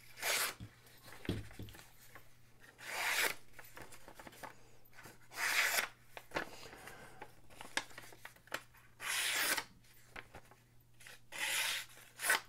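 Bestech Falko folding knife's 154CM blade slicing through a sheet of paper in about five strokes, each a short hiss a few seconds apart: a paper-cutting test of the edge.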